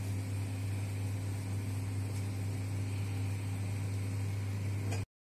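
A steady low hum with a faint hiss, unchanging, which cuts off abruptly about five seconds in.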